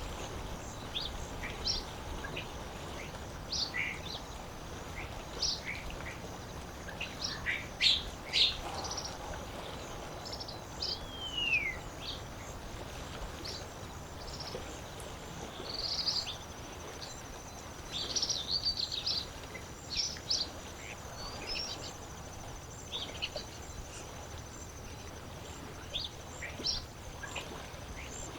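Lakeside ambience: a steady wash of water under many small birds calling in short, high chirps scattered throughout, with one falling whistled note near the middle.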